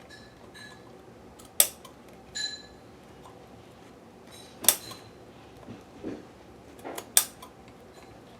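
Sharp scissors cutting excess leather: a few separate, sharp snips a couple of seconds apart, some with a brief metallic ring.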